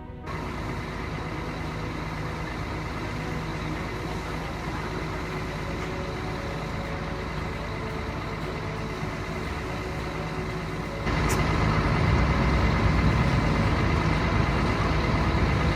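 Steady motor-vehicle engine noise with a low hum. It gets abruptly louder about eleven seconds in.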